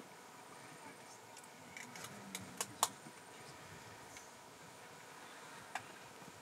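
Quiet background with scattered sharp clicks and ticks. About five come close together between two and three seconds in, the last of them the loudest, and one more follows near the end.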